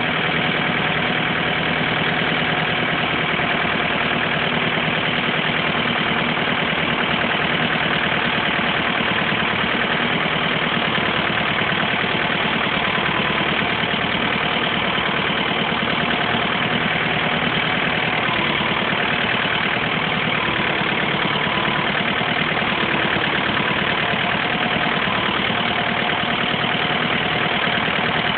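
An engine idling steadily, with an even, rapid pulsing that does not change throughout.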